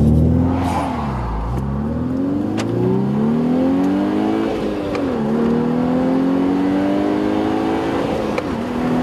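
Volkswagen Golf R's 256-horsepower turbocharged four-cylinder engine heard from the cabin, pulling up in pitch under acceleration. It drops sharply at a gear change about five seconds in, climbs again, and dips briefly at another shift near the end.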